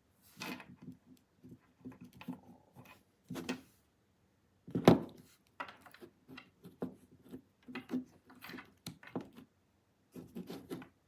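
Handling noise: scattered clicks and knocks of small hard objects being moved about, with one louder knock about five seconds in.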